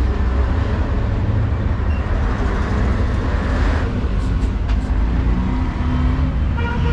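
Steady low rumble of street traffic, with a passing vehicle swelling louder about three seconds in and fading just before the four-second mark.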